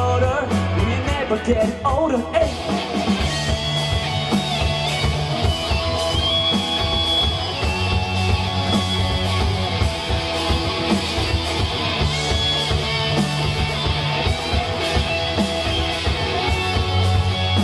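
Live rock band playing, with electric guitars over bass guitar and a drum kit keeping a steady beat. The vocals stop about two seconds in, leaving an instrumental passage.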